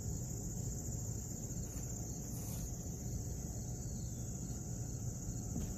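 A steady, high-pitched insect chorus buzzing without a break, over a low rumbling noise.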